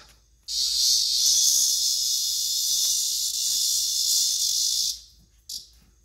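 A cicada buzzing while caught in a dog's mouth: a loud, steady, high buzz that starts about half a second in and cuts off after about four and a half seconds, then one brief buzz near the end.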